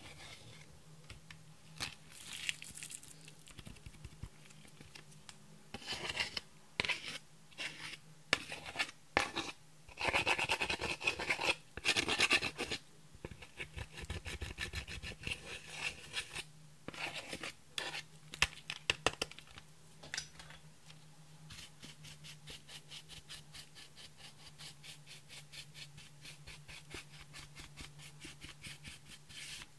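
A metal-tipped pick scraping and crumbling pressed eyeshadow out of a palette's pans. Bursts of dry scratching become quick, even strokes near the end, over a faint steady hum.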